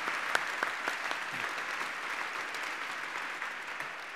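Audience applause dying away gradually, with a couple of sharper close hand claps near the start.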